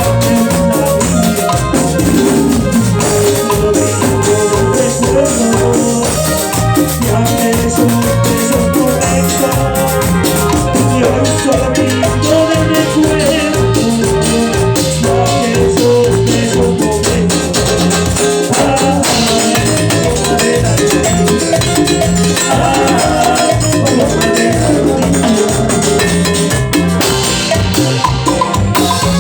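Instrumental passage of Latin chichera dance music: a steady drum and percussion beat under a melodic lead line, with no singing.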